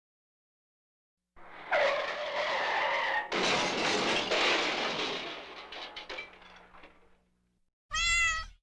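Car tyre-screech sound effect: a skidding squeal about six seconds long that fades away. A brief pitched sound with a wavering pitch follows near the end.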